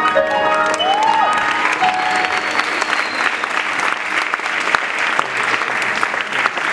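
Concert audience applauding, with a rising-and-falling whistle about a second in, as the last notes of a plucked, harp-like melody stop at the start.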